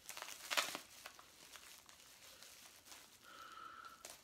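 Plastic packaging on new fishing rods crinkling and tearing as it is pulled open by hand, with the loudest rustle about half a second in.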